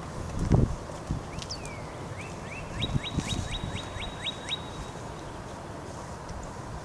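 A songbird singing: one falling whistle, then a quick run of about eight rising chirps. A low thump about half a second in.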